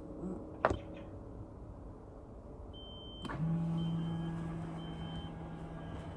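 A click from the trunk button of a Renault Koleos electric retractable towbar, then after a couple of seconds of holding a steady beep, and the towbar's electric motor starts with a steady hum. While the motor runs, a short beep repeats about once a second.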